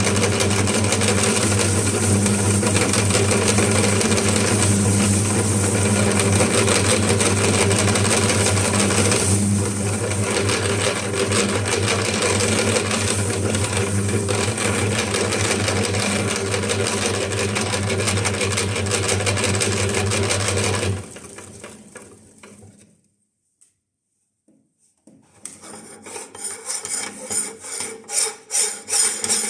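Electric meat grinder motor running steadily with a low hum and a rasping grinding noise as it works through gummy bears. It cuts off about 21 seconds in. After a short silence, a rapid uneven ratcheting clatter starts near the end.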